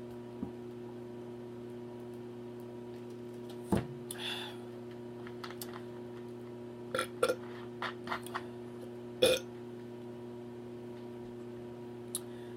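Close-miked eating sounds: scattered short wet mouth clicks and smacks while chewing, with a short burp, over a steady low hum.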